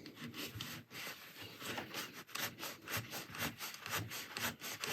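Quick back-and-forth rubbing strokes, about three or four a second: cotton being worked between the tension discs of an old overlocker to clean out the muck lodged there.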